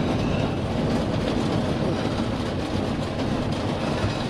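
Steady rush of heavy rain on the truck cab, heard from inside the cab.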